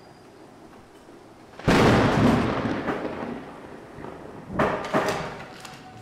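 Apartment front door slammed shut: one sudden loud bang that dies away over about a second. About three seconds later comes a shorter cluster of thumps.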